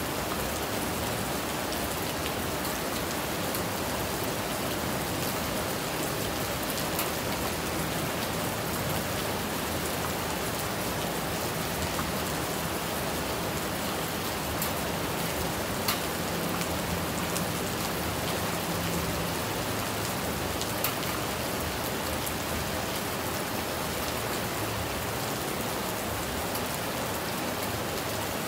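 Steady rain falling, an even hiss of many drops, with a few single louder drop ticks standing out.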